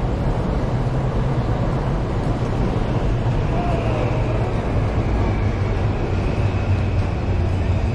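Train rumbling past on elevated railway tracks: a steady low rumble, with a faint high whine rising from about three seconds in.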